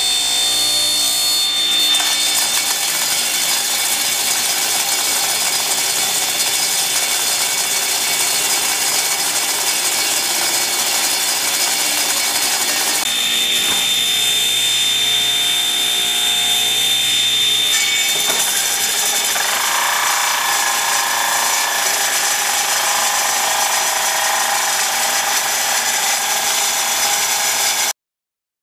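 Table saw running with its blade cutting a square pine blank that a drill spins through a rounding jig, shaving it into a round dowel. It is loud and continuous with a steady high whine, changes in tone about 13 and 18 seconds in, and cuts off suddenly near the end.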